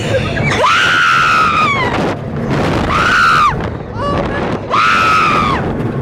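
Roller-coaster riders screaming in fright as the ride drops: three long, high-pitched screams, each tailing off downward, over wind rushing across the microphone.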